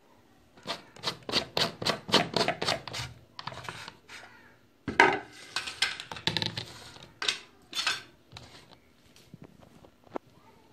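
A plastic pickle jar and a ceramic plate being handled: a quick run of sharp clicks and knocks at the jar's red screw-on lid, then scattered knocks as the jar and plate are moved on the counter, with one louder knock about five seconds in.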